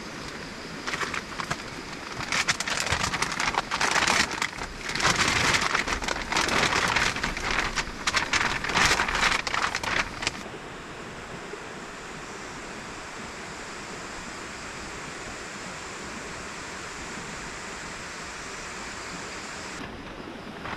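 River water rushing steadily through the second half, with a faint high steady tone over it. Before that, about ten seconds of loud, irregular crackling and rustling, which cuts off suddenly about ten seconds in.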